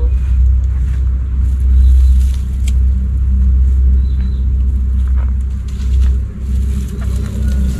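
A steady low rumble with a wavering level, over a few faint crackles of dry palm fronds being pulled apart by hand.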